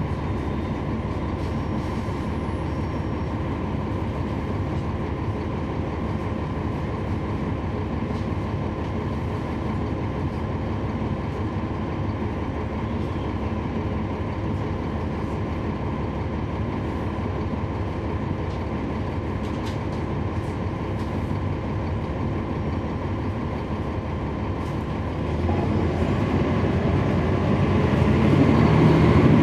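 Cabin sound on board a NABI 40-SFW transit bus: its Cummins ISL9 straight-six diesel running steadily under road rumble, then growing louder and heavier about 25 seconds in.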